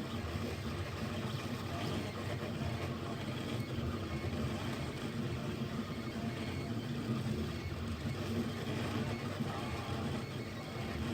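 Anet A8 3D printer running a drawing job with a pen attachment: its stepper motors move the pen continuously, making a steady mechanical hum with small rises and falls.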